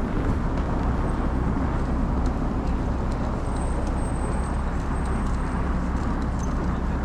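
Steady blizzard wind noise on the microphone, heaviest in the deep low end, mixed with the hiss of street traffic.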